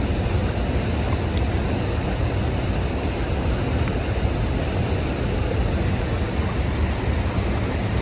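Steady rushing of river water flowing over rocks, an even noise with a heavy low rumble underneath that stays level throughout.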